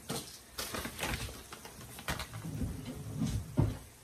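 Quiet kitchen handling sounds: a few light clicks and taps from cookware and a cheese bag being handled, with a louder knock near the end.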